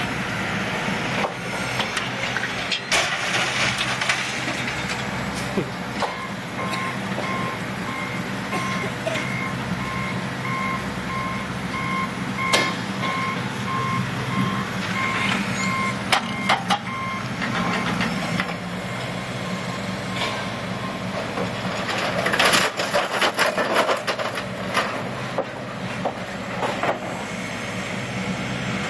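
Heavy diesel scrap-yard machinery running with a steady low hum, while a back-up alarm beeps repeatedly for several seconds in the middle. Scrap metal clanks sharply now and then, with a dense run of clanks a few seconds before the end.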